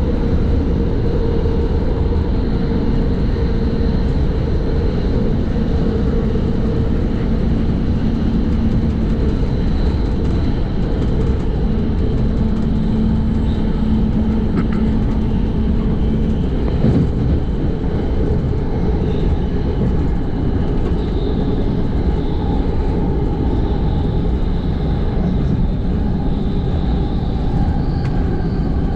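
NJ Transit commuter train running at speed, heard from inside a passenger car: a loud, steady, low rumble of wheels on rail, with a faint steady whine that shifts pitch partway through.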